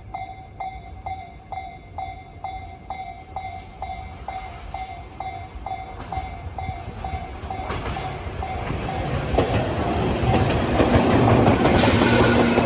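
Japanese level-crossing warning bell ringing steadily, about two strokes a second. From about eight seconds in, the running noise of an approaching Tobu 10030 series electric train grows louder and covers the bell, with a burst of high hiss near the end.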